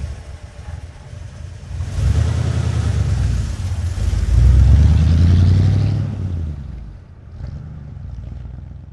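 Old truck's engine running: it grows louder about two seconds in, is loudest around the middle, then dies down to a lower level near the end.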